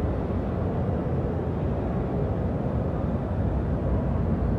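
Steady low hum and rumble of a large exhibition hall, with no single event standing out.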